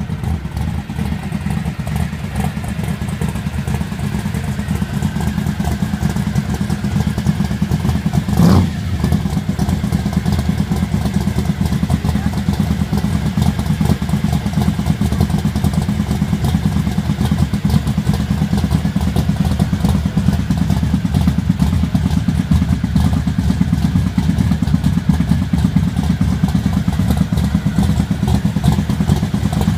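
1968 Plymouth Road Runner V8 idling through a really loud exhaust: a steady, low, rapidly pulsing rumble. There is one brief louder burst about eight seconds in.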